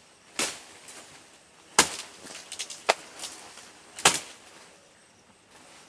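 Machete chopping through plantain leaves and stalks: four sharp chops, spaced about a second apart, with a few lighter cuts and clicks between them.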